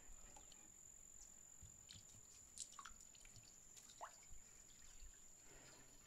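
Faint trickle of water poured from a plastic jug into a small petrol water pump to prime it, with a few faint short chirps.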